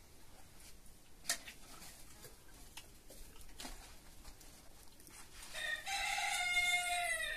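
A rooster crows once near the end, a long, loud call that dips slightly in pitch as it closes. Before it come a few faint clinks of dishware.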